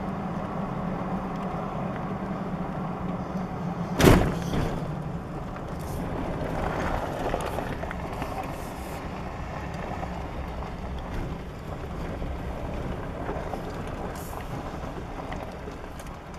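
Pickup truck driving, heard from inside the cab: steady engine hum and road noise, with one sharp thump about four seconds in. The noise grows quieter near the end.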